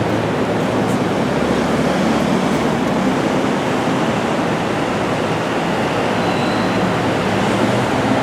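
JR West 281 series Haruka electric express train running past close by: a steady rush of wheel-on-rail noise with a low hum underneath.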